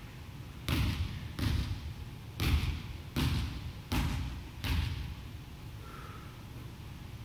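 A volleyball bounced on a hardwood gym floor six times at a steady pace, each bounce echoing in the large hall.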